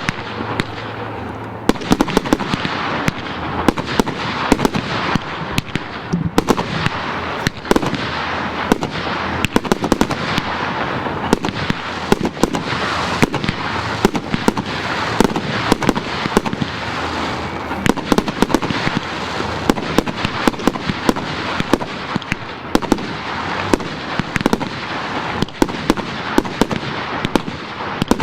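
Fireworks firing a continuous barrage: dense crackling mixed with many sharp bangs in quick succession, with no pause.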